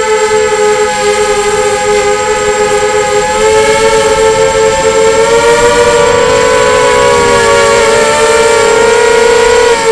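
Quadcopter's electric motors and propellers whining steadily up close from the onboard camera, with two close pitches that waver slightly and rise a little about three and a half seconds in.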